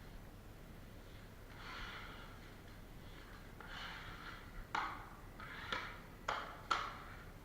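Drywall knife working setting compound into a board joint: two soft scraping strokes, then four sharp clacks of the steel knife in the second half.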